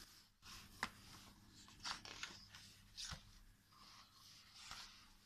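Faint page turning of a hardcover picture book: soft paper rustles and flaps, with a few light taps as the pages settle, the sharpest about a second in.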